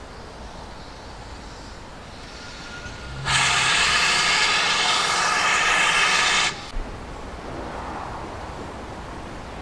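Steam locomotive 7820 letting off steam: a loud hiss of about three seconds that starts and stops abruptly, over a faint steady background.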